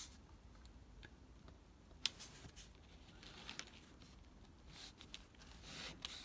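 Faint handling of two freshly glued thin plastic card strips on a cutting mat: fingers pressing and sliding them into line, with a sharp click about two seconds in and light scratchy rustles near the middle and end.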